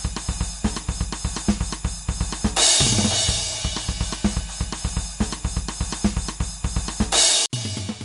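Intro music built on a fast drum-kit beat of bass drum, snare and hi-hat, with cymbal crashes about two and a half seconds in and again near the end, where the track cuts off abruptly.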